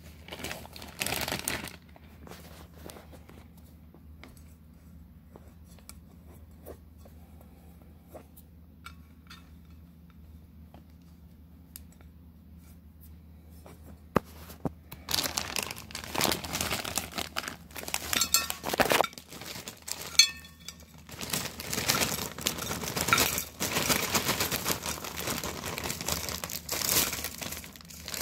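Plastic bag of waffle-cut fries crinkling and rustling as the fries are tipped out onto a plate: a short rustle about a second in, a long quiet stretch, then dense, continuous crinkling through the second half.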